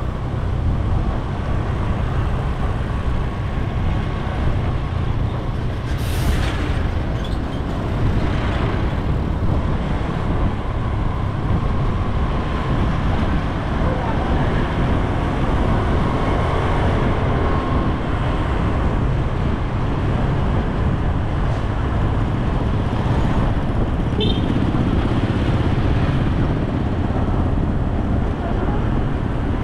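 Street traffic: motor tricycles and motorbikes passing over a steady low rumble, with a brief hiss about six seconds in.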